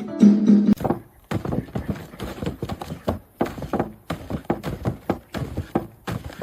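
A short stretch of music ends, then a rapid, irregular series of taps and knocks, several a second.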